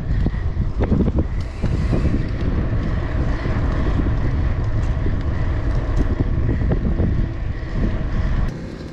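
Wind buffeting a GoPro's microphone during a fast downhill bicycle ride: a dense, loud rumble of rushing air that drops away abruptly near the end.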